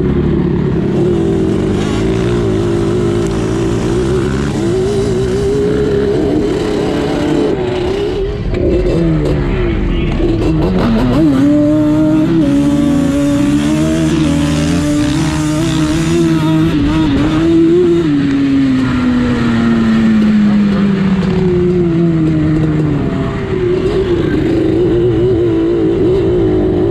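Yamaha Banshee quad's two-stroke twin engine running under throttle, its pitch wavering as the throttle is worked. It climbs sharply about eleven seconds in and holds, falls steadily for several seconds as the quad slows, then picks up again near the end.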